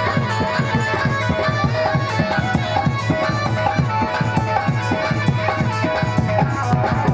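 Indian folk devotional music: a hand drum played in a quick steady beat, its low strokes bending in pitch, under held reed-like tones.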